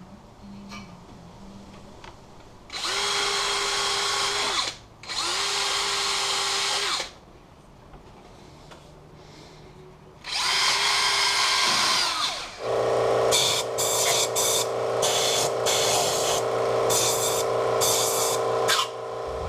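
Handheld power drill running in three short bursts of about two seconds each, the motor spinning up and winding down each time, then a longer run of about six seconds at a steadier, different pitch with a choppy, stuttering top end.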